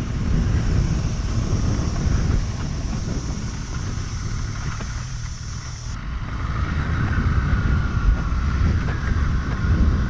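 BMW R1200GS boxer-twin engine running under way while the motorcycle is ridden, with wind buffeting the microphone. The overall level dips briefly about five seconds in, then rises again.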